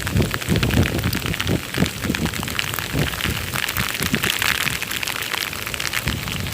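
Rain falling: a dense patter of drops close to the microphone, with irregular low thumps under it.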